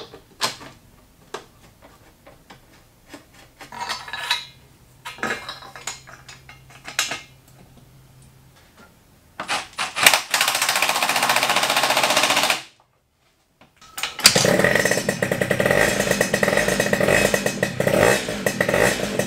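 Scattered clicks and knocks of hands and tools on the moped, then the freshly rebuilt Derbi Start V's single-cylinder two-stroke engine running loud and steady. The engine sound cuts off abruptly, and after a short silence it runs again until the end.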